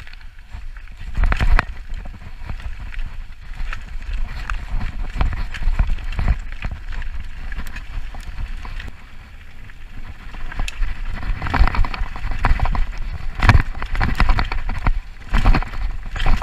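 Mountain bike running down a rough dirt trail, picked up by a body-mounted action camera: a low rumble with clusters of knocks and rattles as the bike hits bumps, heaviest in the second half.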